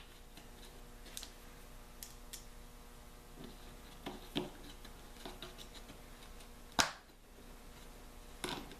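Small scattered clicks and taps of a hand screwdriver and small screws being handled, with one sharper click about seven seconds in, over a faint steady hum.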